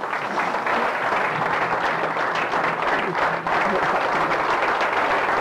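Room full of people applauding, a dense, steady clapping that starts the moment the talk ends, with a few voices mixed in.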